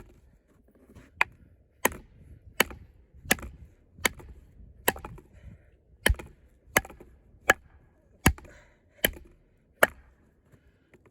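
A steady series of about a dozen sharp wooden strikes, roughly one every 0.7 seconds: a baton hammering the spine of a Lengren Dragon combat knife to drive the blade through a knotty log. The wood is tough going.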